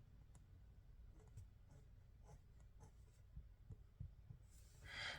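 Fine-tip felt pen (Faber-Castell Pitt artist pen) tapping and scratching faintly on paper in short strokes and dots, with a longer, louder scratch near the end.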